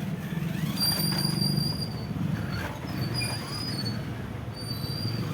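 The small electric motor and gearbox of a toy RC rock crawler running: a steady low hum with high-pitched whines that come and go on top.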